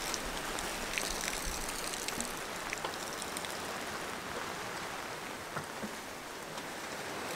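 Heavy squall rain falling on a sailboat under way: a steady hiss with scattered ticks of drops, over water rushing along the hull.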